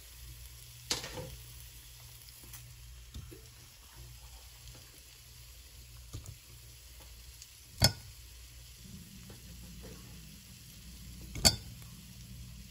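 Matar paneer gravy simmering faintly in a pot, with a low steady hum underneath, as paneer cubes are added. A few sharp knocks stand out, the two loudest about eight and eleven seconds in.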